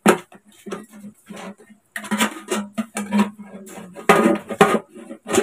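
Kitchen knife being forced into the thick metal lid of a sealed tin coin bank: a run of irregular sharp metal scrapes and knocks as the blade works against the tin.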